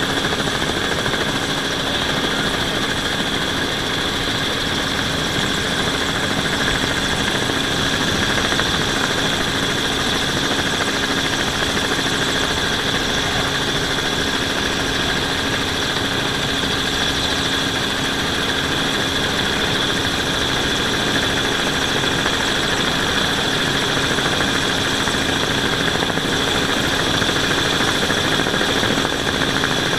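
Onboard sound of the rotorcraft carrying the camera: its motors and rotors run steadily in flight, a loud, constant whine with a few high held tones over a low hum.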